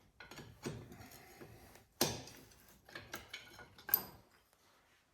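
Scattered knocks and metallic clinks of diesel injectors being pulled from a tractor engine's cylinder head and set down, the loudest about two seconds in and one with a short high ring near the end.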